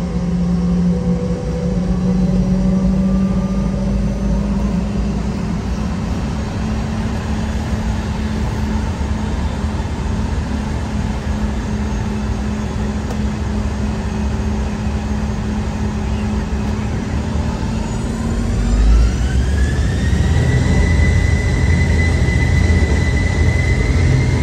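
Boeing 717's twin Rolls-Royce BR715 turbofans: a steady hum and rumble, then about 18 seconds in the engines spool up, a whine rising and levelling off high as the rumble grows, thrust coming up for takeoff.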